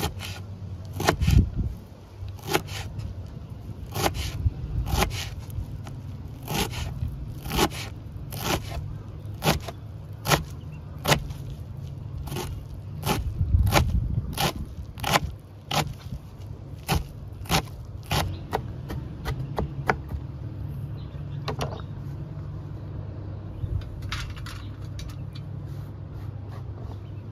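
Knife chopping fresh coriander on a wooden cutting board: a steady run of sharp chops, about one or two a second, that thins out near the end, over a low steady hum.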